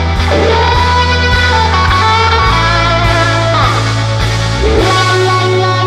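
Background music: guitar over a steady beat and bass line.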